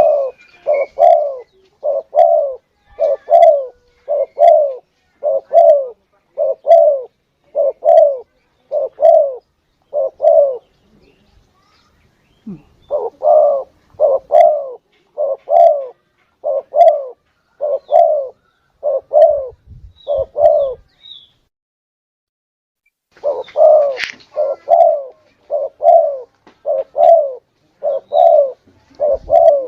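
Spotted dove coo calls played as a hunting lure: short, evenly spaced notes about one and a half a second, in three long runs broken by two brief pauses.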